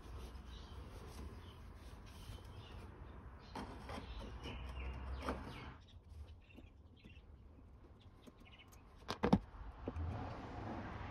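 Faint rustling and small clicks of hands working inside an air-conditioner outdoor unit, with one sharp knock about nine seconds in.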